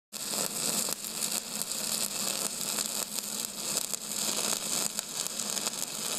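Steady crackling hiss with a low hum underneath.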